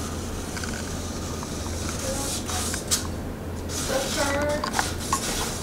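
A felt marker scratching on wood as it traces around a plate, with a few light clicks of handled tools, over a steady low hum. Faint speech comes in near the end.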